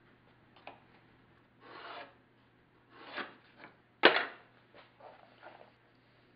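Short scraping and rubbing sounds of thin cedar wood strips being handled and slid over the strip-planked kayak deck, with one sharp wooden knock about four seconds in, the loudest sound.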